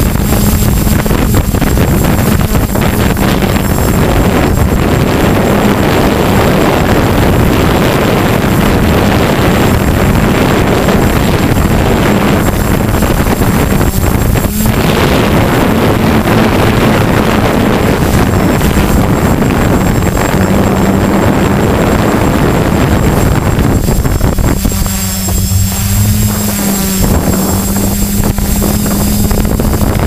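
DJI F450 quadcopter's electric motors and propellers running with a steady hum, heard from on board, with heavy wind buffeting the microphone in strong wind. The noise eases briefly and the hum wavers a little after about 24 seconds.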